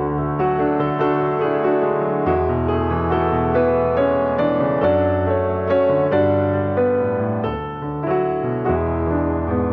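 Background piano music: a gentle melody of evenly paced notes over held bass notes that change every couple of seconds.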